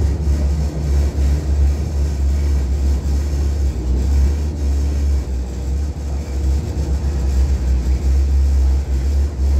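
Hong Kong Light Rail Phase 5 light rail vehicle running between stops, a steady low rumble heard from inside the car.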